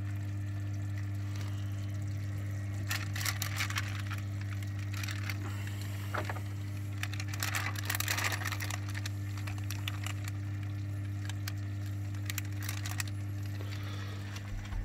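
Plastic bag crinkling and water sloshing in a bucket as a hand works a submerged bag, in three short spells about three, eight and twelve seconds in. A steady low hum runs underneath.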